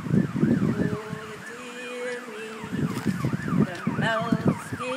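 Emergency-vehicle siren in a fast yelp, its pitch sweeping up and down about three times a second without a break.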